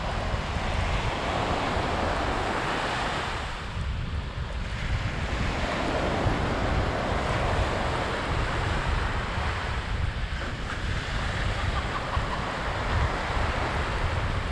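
Small surf washing up on a sandy beach, its hiss swelling and easing with each wave, under a steady low rumble of wind buffeting the microphone.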